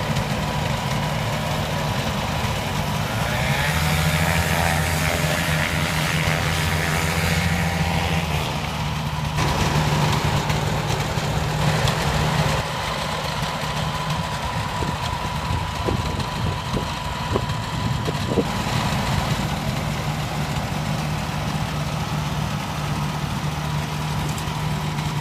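Small engine running steadily, picking up and growing louder between about three and eight seconds in.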